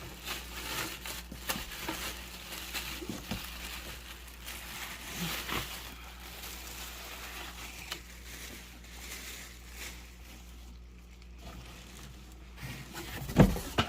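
Packaging being handled while a space heater is unboxed: irregular rustling, crinkling and small clicks, with a louder thump near the end.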